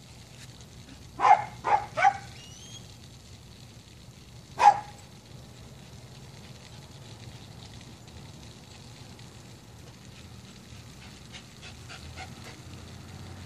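A dog barking: three quick barks a little over a second in, then one more bark about three seconds later, over a steady low hum.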